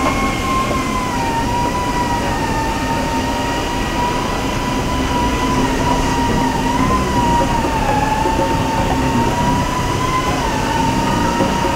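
Paint booth ventilation running: a steady rush of moving air with a high whine that drifts slightly in pitch.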